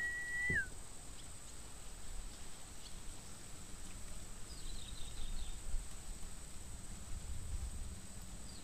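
A single clear whistle held for about half a second, ending in a quick downward slide, right at the start. Then faint bird twittering twice, over a steady high-pitched insect drone.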